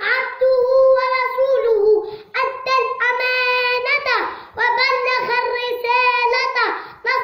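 A young boy's high voice chanting loudly, with long drawn-out held notes between shorter phrases.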